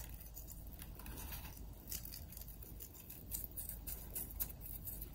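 Faint, scattered small ticks and crackles of flake sea salt crumbled between the fingers and sprinkled onto a raw steak.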